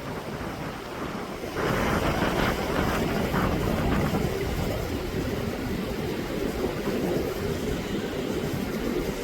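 Mountain stream rushing over rocks, a steady noise that turns suddenly louder about a second and a half in.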